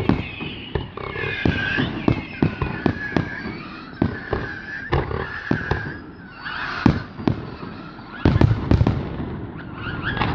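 Aerial fireworks display: shells bursting in a steady run of sharp bangs and crackles, with a denser, louder volley of bangs about eight seconds in.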